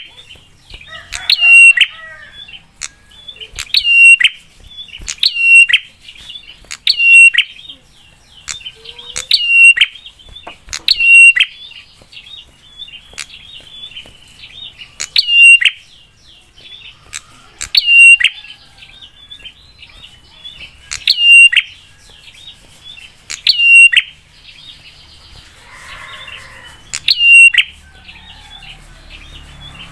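Prinia (prenjak) calling loudly, a sharp, piercing note with a downward swoop repeated about once every one to two seconds, with a few short pauses. It is a fierce lure call that sets other prinias answering.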